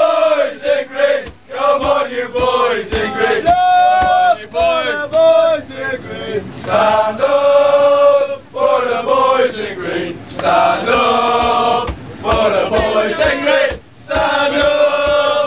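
A group of Irish football fans singing a chant together, loud male voices in ragged unison, holding notes and breaking briefly between lines.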